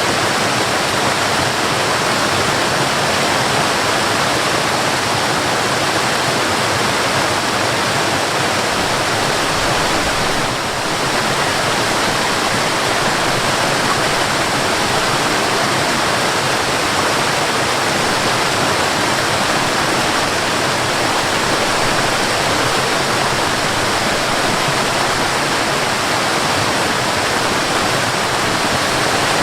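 Mountain waterfall: water pouring and crashing in a steady, dense rush, dipping briefly in level about ten seconds in.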